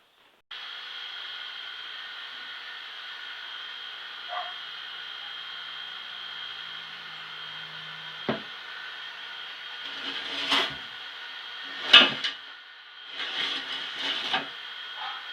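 A small electric motor switches on about half a second in and runs steadily with a high whine. It is broken by a sharp knock about eight seconds in, then by several louder bursts of rubbing and knocking, the loudest knock near twelve seconds.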